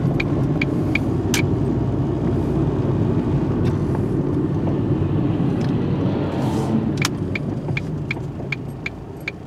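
Car cabin noise while driving: a steady rumble of engine and tyres that grows quieter near the end. A turn-signal indicator ticks about two or three times a second during the first second or so and again from about seven seconds in.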